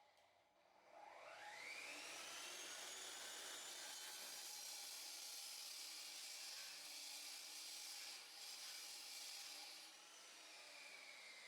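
Electric power tool motor spinning up with a rising whine, running at a steady high pitch, then winding down about ten seconds in.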